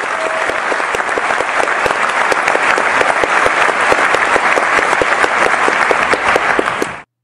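Audience applause, a dense steady clapping that swells a little and then cuts off suddenly near the end.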